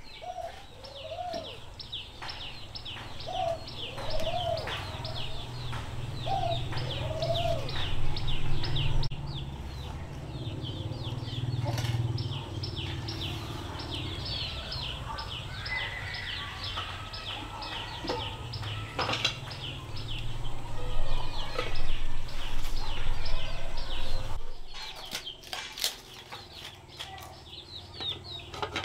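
Chickens calling: rapid, high peeping calls throughout, with several lower clucking calls in the first few seconds. A low rumble runs underneath until it stops near the end, with a few sharp knocks.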